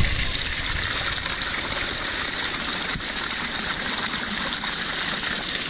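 A small cascade rushing steadily over rocks, pouring and splashing into a metal cooking pot held under the flow to fill it with water.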